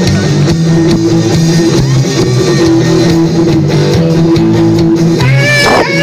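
Live band playing amplified electric guitars, bass and drums, loud and distorted on a phone recording. About five seconds in, a higher sustained part comes in over the chords.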